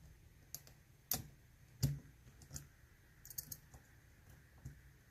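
Irregular small clicks and taps of a dimple pick and tension wrench working the pins inside a Mul-T-Lock Interactive dimple padlock, with the loudest knock a little under two seconds in.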